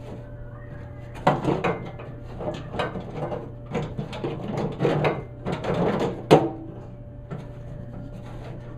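Metal hardware clicking, knocking and rattling inside a Chevy C10 truck door as parts are handled and fitted. There is a flurry of irregular knocks from about a second in, with one sharp, loudest click a little after six seconds. A steady low hum runs underneath.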